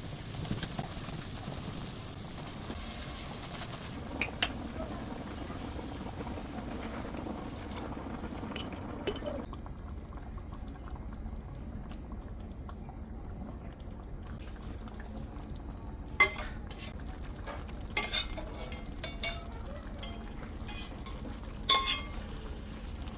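Kitchen cooking sounds: a steady hiss that cuts off about nine seconds in, followed by several sharp clinks of dishes and cutlery.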